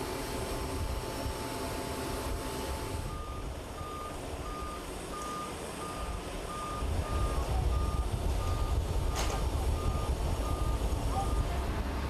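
An electronic warning beeper sounding a single tone on and off about twice a second, starting about three seconds in, over a steady hiss. A heavy low rumble from machinery joins it about seven seconds in.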